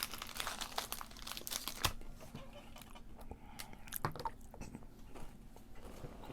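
Close-up crunching and chewing of a white-chocolate Fruity Pebbles candy bar, its cereal pieces crackling in irregular sharp crunches, the loudest about two and four seconds in.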